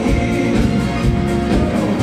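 Loud live band music from a concert stage, with sustained chords over a steady drum beat, picked up by a phone in the audience.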